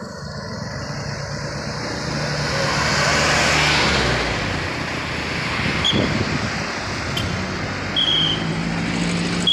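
Road traffic at a crossroads: a motor vehicle passes close, its engine and tyre noise swelling to a peak about three to four seconds in, over the steady low hum of motorbike engines. A few short high chirps sound near the end.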